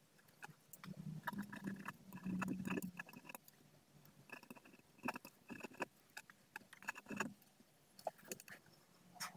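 Ballpoint pen writing on paper: irregular short scratches and ticks of the tip as words are written out. A low hum sits underneath from about a second in, fading out a couple of seconds later.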